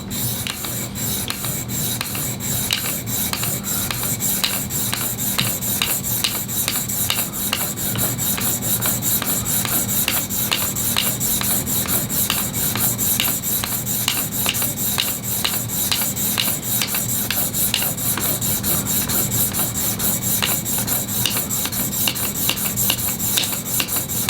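Ceramic clipper-blade cutter stroked back and forth by hand on the 600-grit side of a diamond sharpening plate: a steady, even rhythm of short rasping strokes, refining the burr on the cutter's edge.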